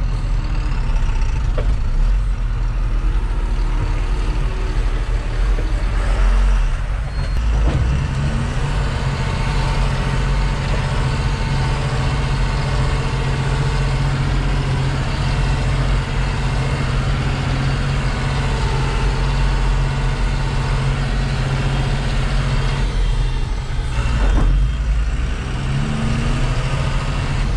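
A tipper truck's diesel engine runs steadily, heard from inside the cab, under road noise from the rough, broken gravel road. The engine note shifts about seven seconds in and again near the end.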